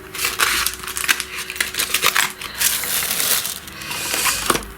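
Plastic and paper packaging crinkling and rustling in the hands, in dense irregular crackles.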